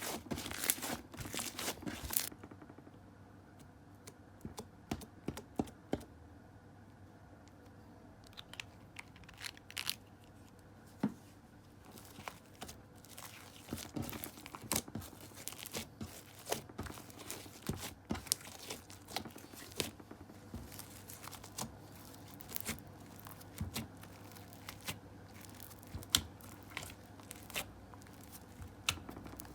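Clear slime being squeezed and stretched by hand, giving sticky crackles and small clicking pops. These come thick and fast for the first two seconds, then more sparsely and scattered.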